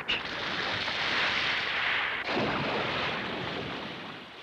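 Animated-film sound effect of sea water rushing and splashing as a whale dives, with a fresh surge about two seconds in, then fading away.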